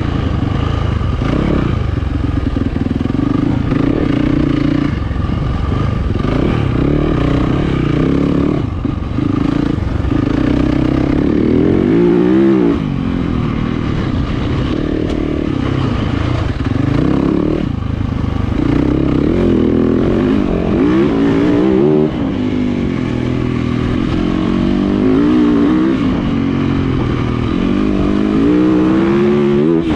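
2020 Yamaha YZ450FX dirt bike's 450cc single-cylinder four-stroke engine running hard on a trail ride, its note holding steady at times and rising and falling again and again as the throttle is worked.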